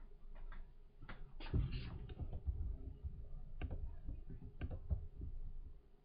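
Desk handling noise: an irregular scatter of mouse clicks and soft knocks, with heavier low thumps about a second and a half in and again near the end.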